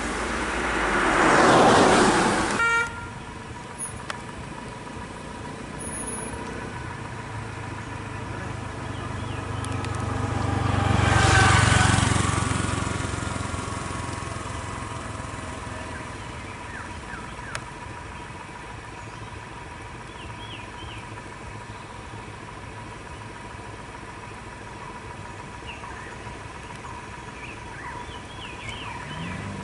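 Road traffic: a loud rushing noise in the first couple of seconds cuts off suddenly. A motor vehicle then passes, its engine rumble and tyre noise swelling to a peak about eleven seconds in and fading away. A faint steady hum and a few short high chirps run under the rest.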